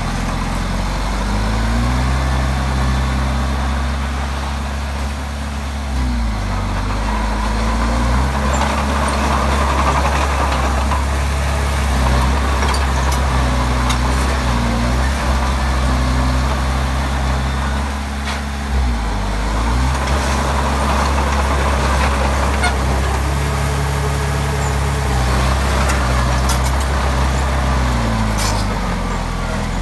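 Diesel engine of a Komatsu D20P crawler bulldozer running under work, its pitch dropping and recovering every few seconds as the load comes on and off, with a few faint metallic clicks.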